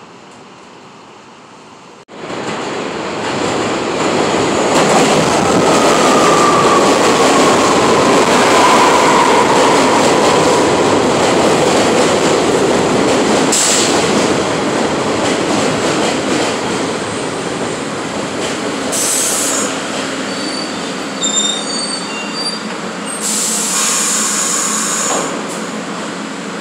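6 train of R62A subway cars pulling into the station, its wheels and motors loud on the rails, with a squeal that glides down in pitch as it brakes. Once it has stopped, several short hisses of air follow.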